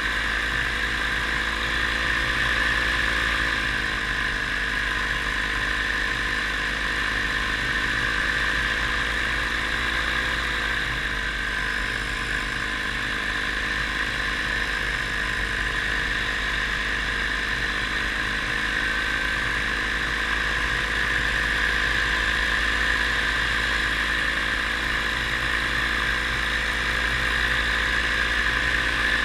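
Paramotor engine and propeller running steadily in flight, the pitch dipping slightly twice, a few seconds in and again about ten seconds in.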